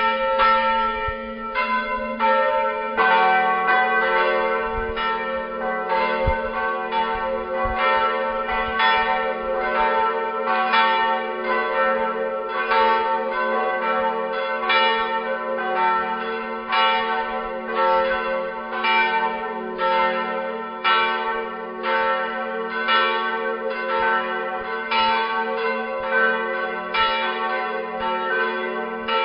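A peal of several church bells ringing together, strokes following one another about once or twice a second and overlapping into a continuous ringing; more bells join about three seconds in.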